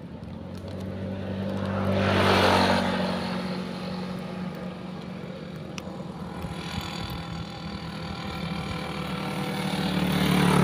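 Motor vehicle engines running along the road. The sound swells to a peak about two and a half seconds in as one passes, then builds again near the end as another approaches.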